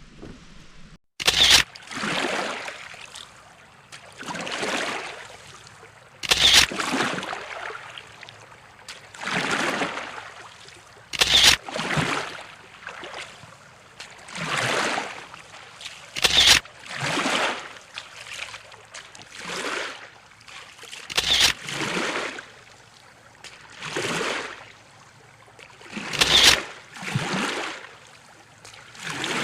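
Kayak paddle strokes, the blades dipping and pulling through the water in a steady rhythm, a swish every two to three seconds. A sharp click or knock sounds every five seconds, louder than the strokes.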